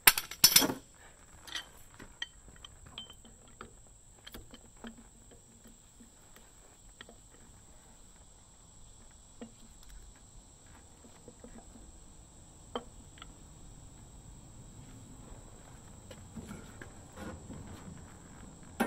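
Loud clanks of a steel pipe and pipe wrench just after the start, then scattered light metallic clinks and knocks as the axle hub cap on an LMTV military truck is loosened and worked by hand, over a steady faint high-pitched hiss.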